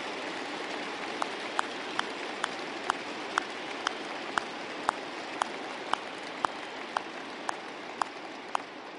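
Large crowd applauding steadily, with one sharp, loud clap or click standing out about twice a second from about a second in. The applause slowly dies down near the end.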